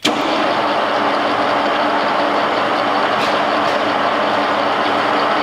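Vintage Kunming milling machine's spindle motor and geared head running steadily under power, a steady mechanical whirr with a constant gear whine, turning the right way round on its new wiring.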